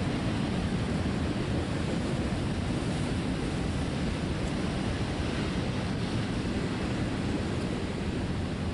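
Double-stack intermodal freight train rolling past: steady rumble of steel wheels on the rails under the container well cars.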